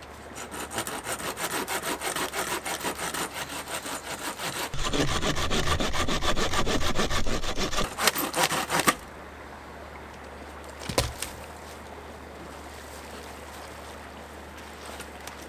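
Hand saw cutting through a tree branch in quick back-and-forth strokes, about four a second, getting louder and heavier about five seconds in and stopping about nine seconds in. One sharp knock about two seconds after the sawing stops.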